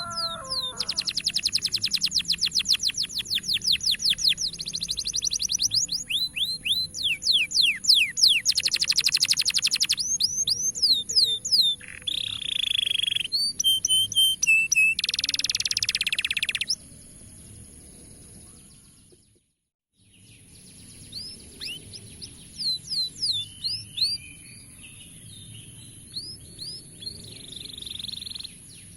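Domestic canary song: long, very fast trills of repeated notes and rising chirps, loud in the first half. About two-thirds through the recording briefly cuts to silence, then the song resumes more softly.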